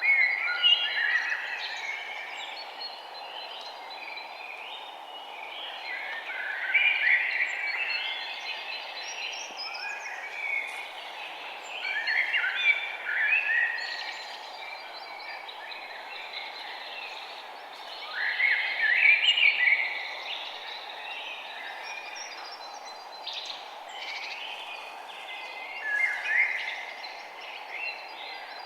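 Songbirds singing in loud chirping phrases that come back about every six seconds, with quieter calls in between, over a steady background hush.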